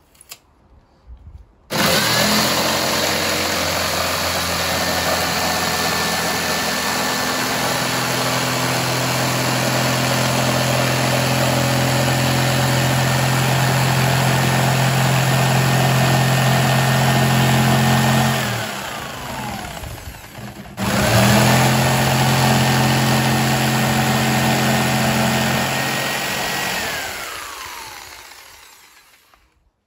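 Corded electric jigsaw cutting through a fibreboard sheet, a steady motor whine with blade chatter. It starts about two seconds in, runs steadily, then winds down with falling pitch; it starts again a moment later and runs a few seconds more before winding down near the end.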